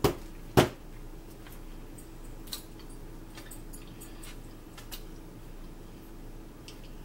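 Two sharp knocks near the start, then quiet close-up eating sounds: faint chewing and mouth clicks over a steady low hum.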